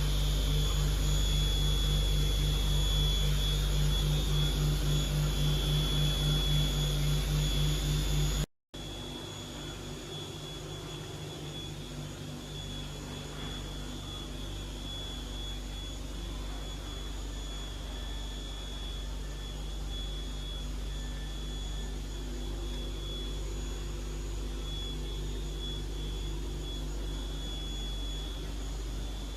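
Star SB-20R CNC lathe running steadily: a constant mechanical hum with a high thin whine and a low pulsing beneath. The sound breaks off for a moment about eight seconds in, then carries on a little quieter.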